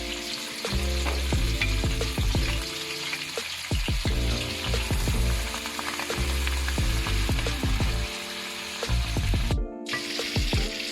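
Curry ingredients sizzling as they fry in a pan, stirred with a utensil that clicks and scrapes against it. Background music runs underneath, and the sound drops out for an instant near the end.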